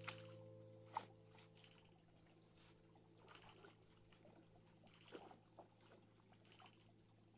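Near silence: a faint keyboard chord from background music slowly fading away, with a few soft clicks and splashes of water from hands and feet in the shallow muddy pond, the sharpest about a second in.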